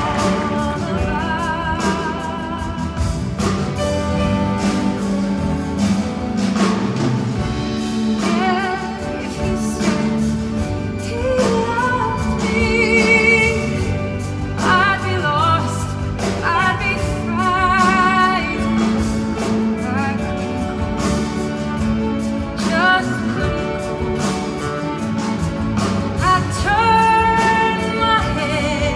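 A woman singing a slow ballad solo, holding long notes with vibrato, over instrumental accompaniment, in a live recording from the audience seats.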